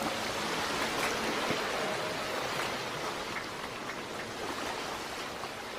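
Steady rushing noise of ocean surf washing in, an even hiss without pitch or beat.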